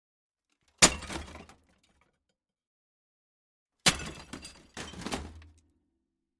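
Metal smash impacts: a sharp crash with rattling debris about a second in, then a second crash about three seconds later followed quickly by another, each dying away in clattering metal.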